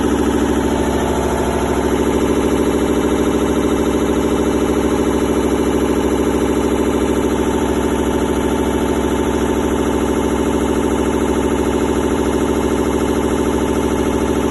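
Samsung washing machine on its spin cycle, making a loud, steady, fast rattling and knocking. This is the sign of a broken drum spider (tripod) that has left the drum loose and banging.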